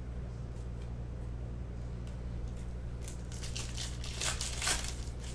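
Foil wrapper of a trading-card pack crinkling and tearing as it is ripped open by hand, mostly in the last two seconds, over a steady low hum.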